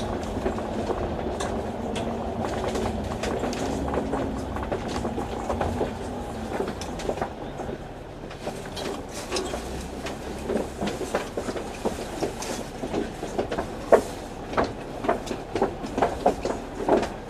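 Inside an Alexander Dennis Enviro500 MMC double-decker bus on the move: a steady engine and road hum. From about halfway on, frequent sharp rattles and clatters from the bus's body and fittings.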